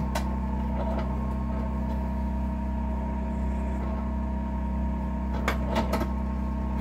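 Steady hum of an electric motor spinning a shotshell roll crimp tool, with a sharp click at the very start and three quick clicks near the end.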